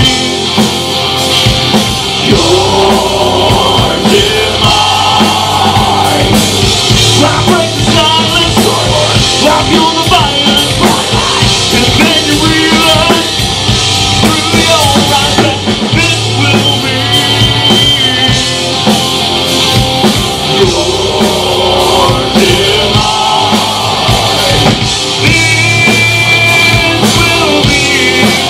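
Live rock band playing loud: electric guitars and a drum kit in an instrumental stretch of the song.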